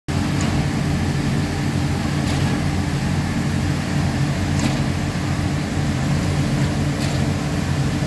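Concrete pump's engine running steadily, a deep even rumble, with a faint sharp click about every two seconds.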